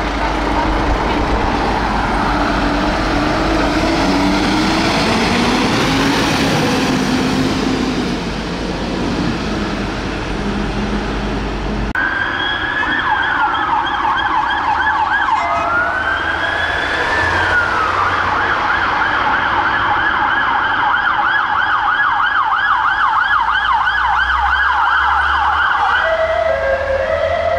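A Mercedes-Benz Atego fire engine's diesel engine running as the truck pulls out, with no siren. About twelve seconds in this gives way to police sirens: a wail rising and falling, then a fast yelp, and near the end a lower two-note alternating tone.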